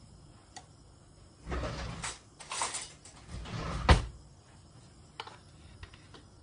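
A kitchen cupboard being opened and things moved about inside it, three short scraping, rustling stretches, ending in a sharp knock as the door shuts about four seconds in.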